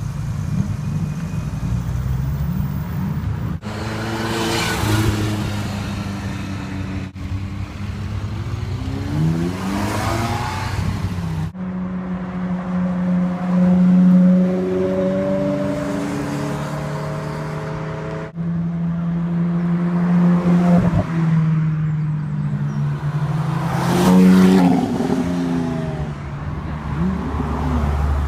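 A string of short clips of supercar engines: cars accelerating and driving past, the engine note falling in pitch as each goes by, and one engine holding a steady rev in the middle. The clips change abruptly several times.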